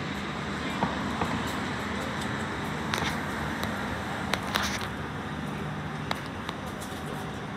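City street traffic noise with a steady low hum that drops slightly in pitch about five seconds in, and a few sharp clicks.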